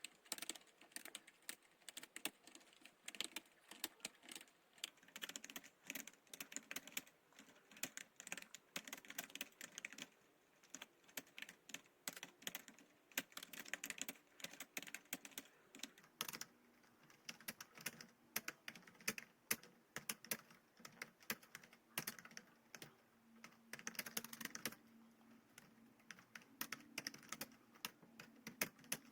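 Computer keyboard typed on at speed, a quick run of key clicks with a few brief pauses, as in a timed typing test at about 40 words per minute.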